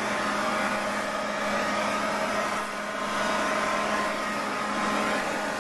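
Cordless 12-volt Werktough leaf blower running, a steady motor whine over the rush of air from the nozzle, easing briefly about two and a half seconds in.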